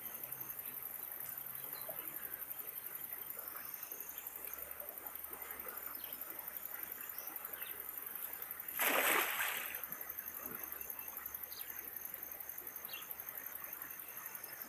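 Faint river-bank ambience: insects buzzing steadily with a high chirp pulsing at an even rhythm. About nine seconds in, a louder rush of noise lasts about a second.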